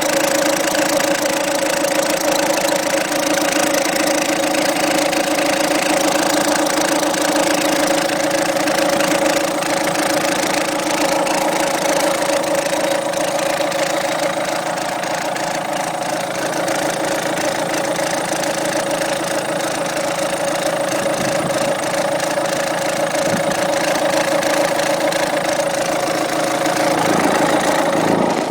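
Peugeot 207's 1.6 HDi four-cylinder turbodiesel idling steadily, with a constant tone over the engine noise. The tone is the first of two noises, which the owner cannot identify.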